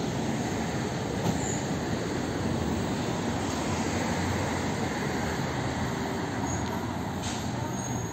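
Steady vehicle rumble with road noise.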